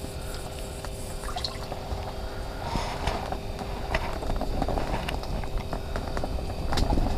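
A small panfish being reeled up through the ice hole and swung out: light water splashing and dripping among clicks and jacket rustle, over a steady low hum. The handling noise gets louder toward the end.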